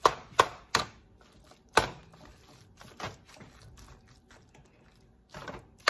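Metal spoon knocking against the side of a pot while stirring a thick ground-meat and rice mixture: three quick knocks in the first second, another a second later, then quieter stirring and scraping.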